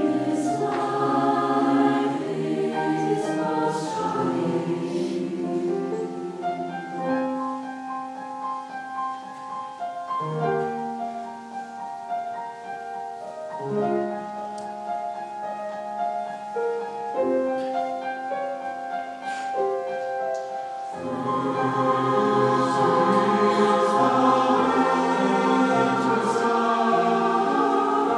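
Concert choir singing in parts. The sound thins to a quieter, sparser passage of held notes in the middle, then swells back to full, louder singing near the end.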